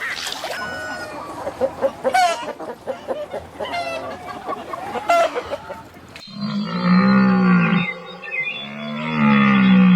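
Chickens clucking in quick, short calls. After an abrupt cut about six seconds in, another animal gives two long, drawn-out calls, each rising and falling in pitch and louder than the clucking.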